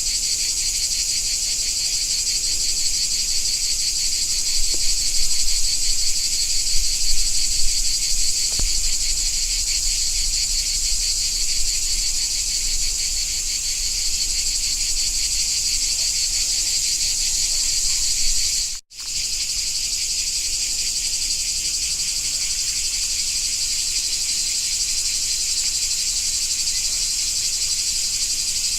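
Dense, steady chorus of summer insects singing in a high, finely pulsing buzz. It cuts out to silence for a split second about two-thirds of the way through, then carries on.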